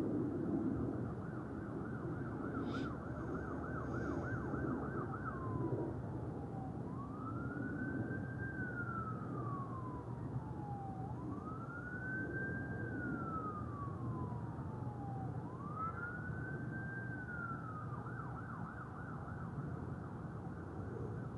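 Emergency vehicle siren sounding a fast yelp, switching to three slow wails that rise and then fall away, and going back to the yelp near the end, over a steady low rumble.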